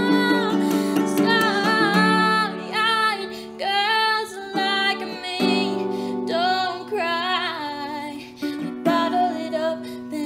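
A woman singing in short phrases while playing an acoustic guitar.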